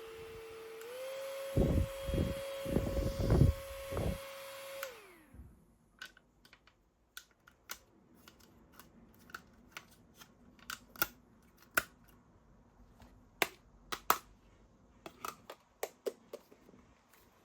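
Small electric desk fan whirring with a steady hum and airy hiss; its pitch steps up a notch about a second in as the speed is raised. Several handling knocks follow, then the motor winds down and stops about five seconds in, leaving scattered light clicks and taps.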